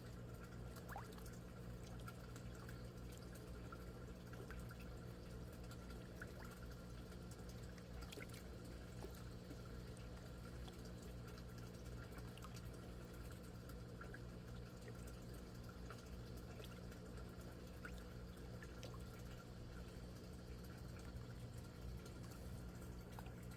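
Water pouring and dripping steadily in an aquaponics system, with a steady low hum underneath.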